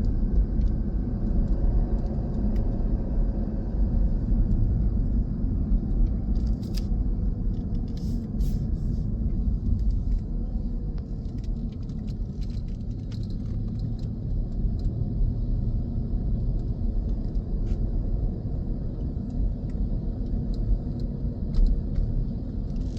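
Steady low rumble of a car driving, with road and engine noise and occasional faint ticks.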